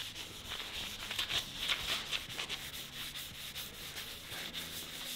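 Howard Feed-N-Wax being rubbed onto oak boards: a soft, irregular scratchy rubbing in short strokes.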